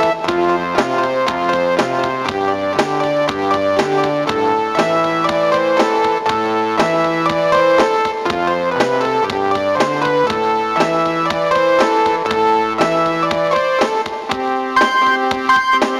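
Background music: a keyboard tune of electric piano and synthesizer, steady notes in an even rhythm.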